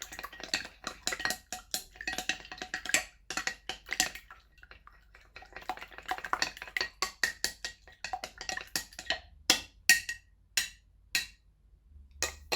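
Egg being stirred briskly in a bowl, the utensil clicking rapidly against the bowl's side in bursts. Near the end the clicks give way to a few separate sharp taps about half a second apart.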